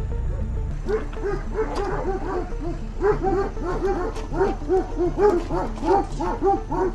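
A dog barking rapidly and continuously, short sharp barks at about three a second, starting about a second in.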